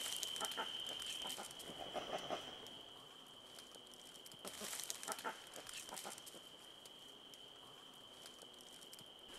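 Quiet rainforest ambience: a steady, high-pitched insect drone on one pitch, with faint scattered rustles and clicks in the undergrowth, a little louder around the middle.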